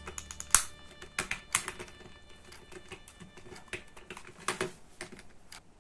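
Light irregular clicks and scrapes of a thin metal tool prying at the snap latches on the plastic case of a quartz clock movement. The loudest click comes about half a second in, and the clicks thin out in the second half.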